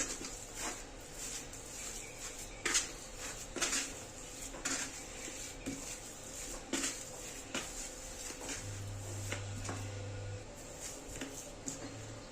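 Kitchen utensils clinking and knocking against dishes in irregular sharp taps, roughly one a second.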